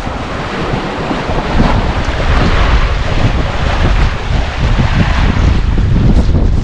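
Strong sea wind buffeting the microphone in a heavy low rumble, over the wash of waves against the shore rocks; the buffeting grows louder about a second and a half in.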